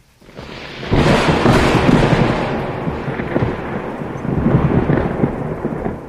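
A loud roll of thunder, swelling over about a second and going on crackly and unbroken for several seconds before easing off near the end.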